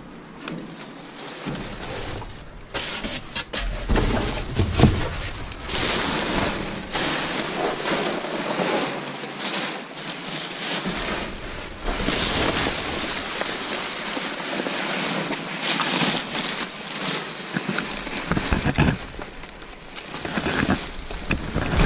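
Plastic bags and clear plastic wrapping crinkling and rustling as gloved hands dig through rubbish in a dumpster, with scattered knocks of items being moved.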